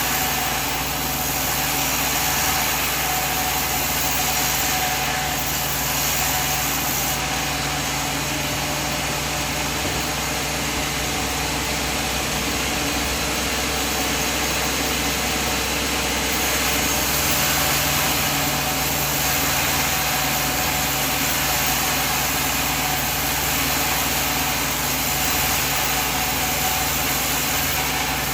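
Sawmill machine running steadily: a constant mechanical drone with a steady hum and no distinct changes.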